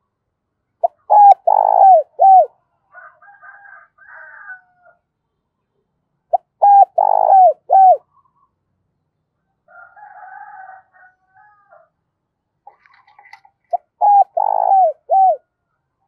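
Caged decoy spotted dove singing its cooing song three times, each phrase a short note followed by a run of falling coos. Fainter, higher, scratchy sounds come between the phrases.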